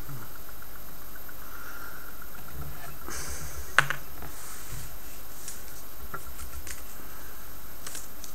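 A single sharp snap about four seconds in, typical of a homemade wire welder discharging as silver wire is welded to 0.15 mm nichrome wire. Faint handling rustles and light ticks sit over a steady background hiss.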